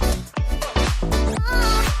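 Electronic dance music with a steady four-on-the-floor kick drum, about four beats a second, and a synth line that glides up and down about a second and a half in.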